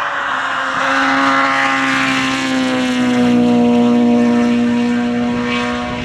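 Group F2000 rally car engine held at high revs. The note eases down slightly in the first second, then holds steady, loudest about four seconds in, and fades near the end.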